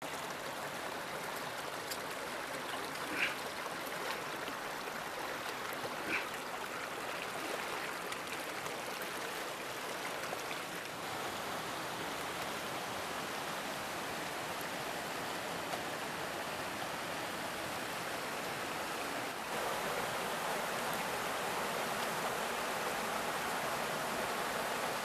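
River water rushing steadily over rocks, an even hiss of flowing water. Two brief, sharper high sounds stand out about three and six seconds in.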